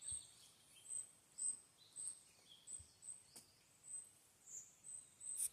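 Small birds chirping: a string of short, very high chirps repeating about twice a second, with a few lower calls mixed in.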